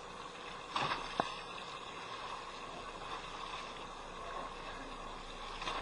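Steady background noise aboard a fishing boat at sea, a wash of wind and water. A couple of brief knocks come about a second in.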